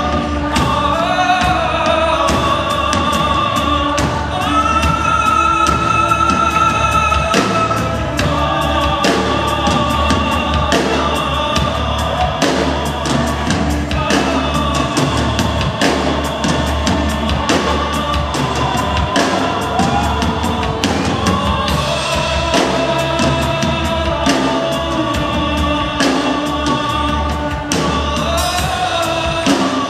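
A live worship band plays: a male voice sings long, held notes over electric bass, electric guitar and a drum kit, with voices from the crowd singing along.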